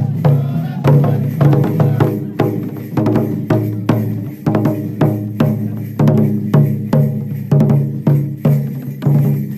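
Hand-held Japanese festival taiko drums beaten in a steady rhythm for a shishimai lion dance, about three strokes a second, over a steady low hum.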